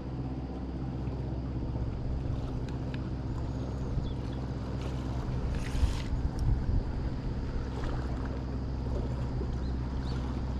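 A boat's engine running steadily at an even pitch, with wind and water noise. A short hiss is heard about six seconds in.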